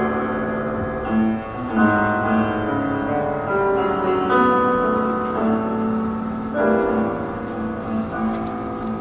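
Instrumental music: sustained chords over a steady held low note, the chords changing every second or two.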